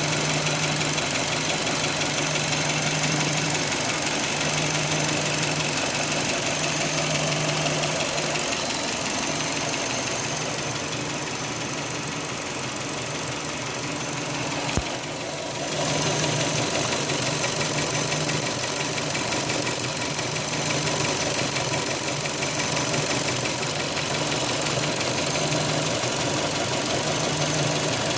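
2005 Hyundai Elantra engine running with a steady, fast ticking-knocking noise from the top of the engine, plus one sharp click about halfway through. The owner says the noise has become more prominent since he tightened the timing belt, and wonders whether it is valve tick, engine knock or fuel-injector noise.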